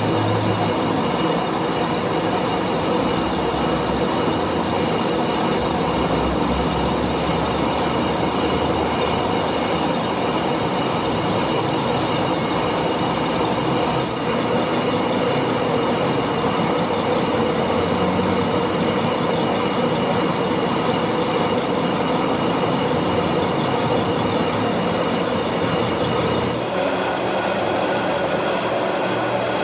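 Metal lathe running and cutting metal: steady, loud machine noise with several steady high tones over it, shifting slightly in character near the end.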